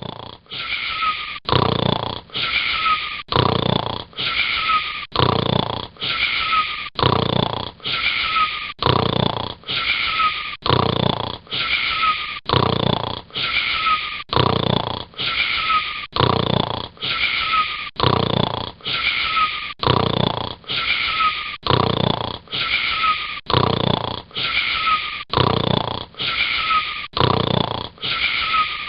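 Snoring in a steady, even rhythm of about one snore a second, each with a thin, wheezy whistling tone.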